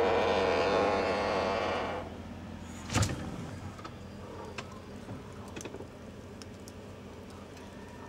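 Siemens fridge-freezer running with a loud rough buzz, the noise it is being shown for, which stops about two seconds in and leaves a steady low hum. One sharp click about three seconds in, then a few faint ticks.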